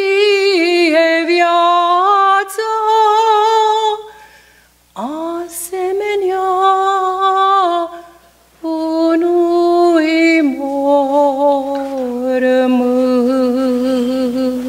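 A woman singing a Romanian Orthodox pricesnă solo, unaccompanied: long drawn-out notes with vibrato in three phrases, with breaths between them, the last phrase dropping to a low note held long.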